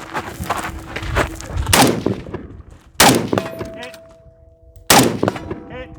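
Three gunshots at a competition stage, the first about two seconds in and the others roughly a second and two seconds later. Steel targets ring after the hits, with a lingering metallic tone.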